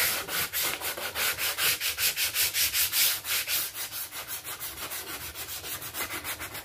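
Hand sanding block with 220-grit paper rubbed back and forth along the jigsaw-cut edge of a fibreboard door panel, smoothing the cut: quick, even strokes, about five or six a second, a little softer in the second half.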